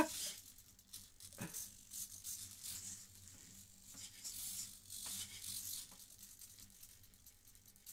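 Faint whirring and clicking from the hobby servo motors of a 3D-printed robot arm as it moves, with a small knock about one and a half seconds in.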